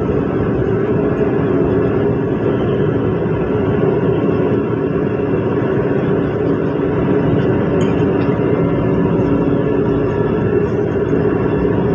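An electric commuter train running fast, heard from inside the carriage: a steady rumble of wheels on rail with a constant hum.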